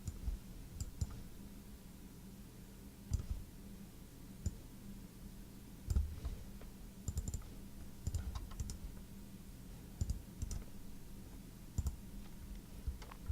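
Scattered light clicks and taps, often two or three in quick succession, with pauses between them, over a steady low hum.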